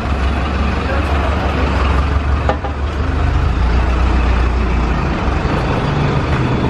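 Samosas sizzling in a kadai of hot oil, heard over a steady low rumble, with a light knock about two and a half seconds in.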